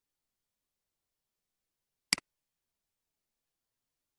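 A single computer mouse click, a sharp double tick of press and release, about two seconds in, with silence around it.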